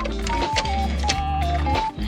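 Background music with a melody, bass and a steady drum beat.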